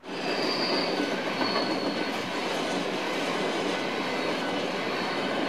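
Train running along the rails: a steady rush of wheel and track noise, with a thin high wheel squeal twice within the first two seconds.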